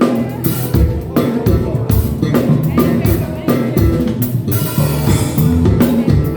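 Small band playing a drum groove with a displaced, off-the-beat feel: drum-kit hits with bass drum and cymbals, over held guitar and keyboard notes.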